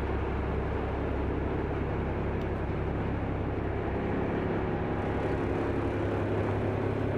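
Small passenger ferry's engine running steadily at the dock, a low drone heard from inside the cabin.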